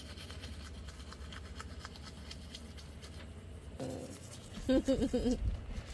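Toothbrush scrubbing teeth in quick, faint, scratchy strokes. Near the end there is a short muffled voice sound, made through the brushing.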